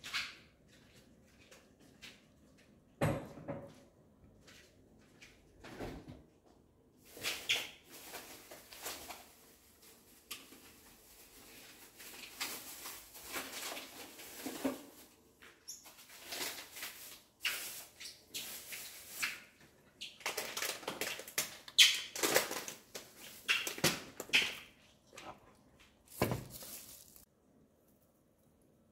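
Irregular kitchen handling sounds: a metal spoon stirring and scraping in a cooking pot, with a few short knocks of cookware.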